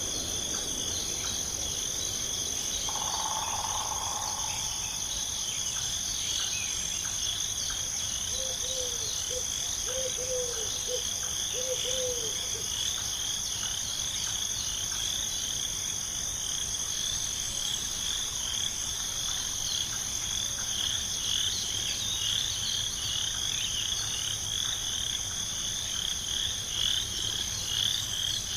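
Night chorus of insects and frogs: a steady high chirring with a rapid pulsing trill that grows stronger in the second half, and a short run of four low croaks about a third of the way in.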